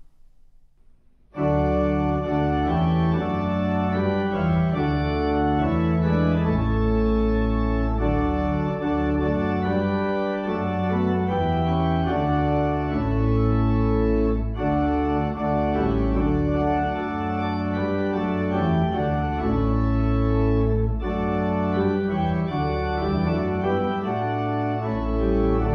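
Organ postlude: slow, sustained chords over deep bass notes, starting suddenly about a second and a half in.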